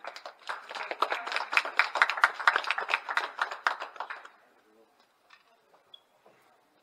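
Small group of people applauding, clapping for about four seconds and then stopping.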